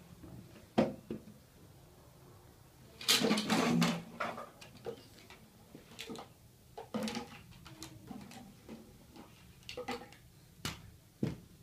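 Plastic toys and a plastic basket knocking and clattering in a series of separate knocks, with a longer, louder clatter lasting about a second, about three seconds in.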